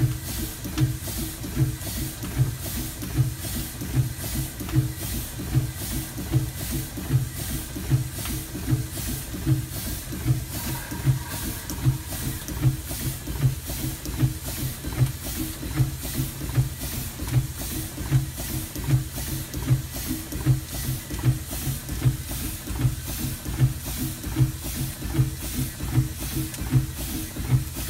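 Fowler B5 compound steam road locomotive's engine running, its motion turning over with a steady, even exhaust beat over a constant hiss of steam.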